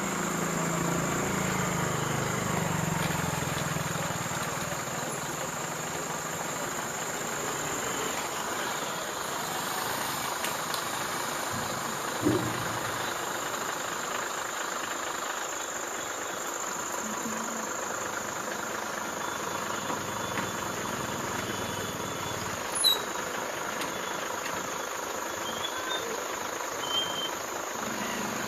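Steady mechanical drone over constant background noise, with a few brief clicks and knocks.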